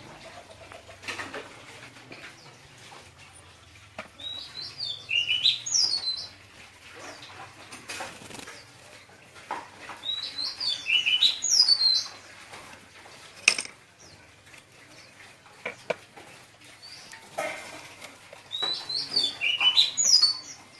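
Caged white-eyes singing: three bursts of fast, high, twittering song a few seconds apart, with a handful of sharp taps and flutters in between.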